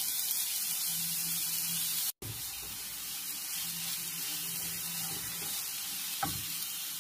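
Chopped onion sizzling in hot oil in a frying pan as it is stirred with a spatula. The sizzle breaks off for a moment about two seconds in.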